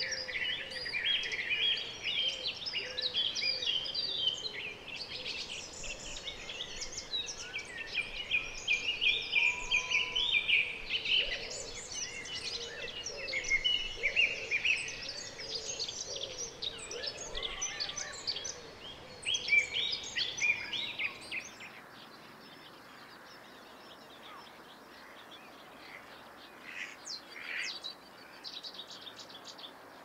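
Dawn chorus: many songbirds singing at once in dense, overlapping phrases, thinning to a few scattered calls after about twenty seconds.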